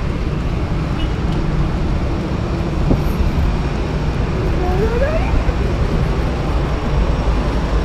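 Steady rumbling noise of an airport apron, from aircraft and ground vehicles running nearby, with a short rising tone about five seconds in.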